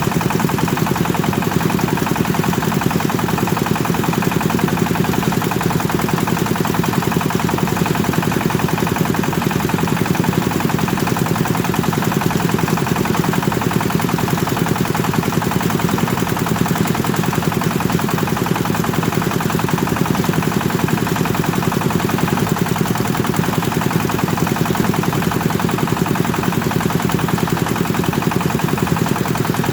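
Rice thresher driven by a Kubota diesel engine, running steadily at constant speed with a fast, even knocking.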